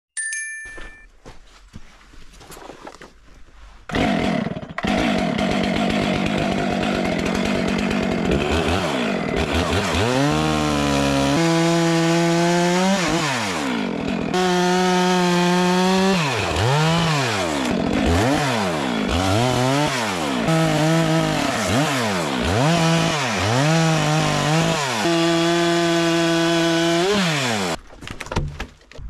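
Chainsaw cutting through a fallen log. It comes up to full throttle suddenly about four seconds in, then its pitch rises and falls over and over as it revs and bogs down in the wood. It cuts out near the end.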